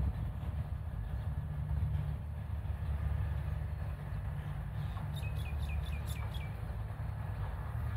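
Steady low outdoor rumble, with a bird giving a quick run of about seven short, falling chirps about five seconds in.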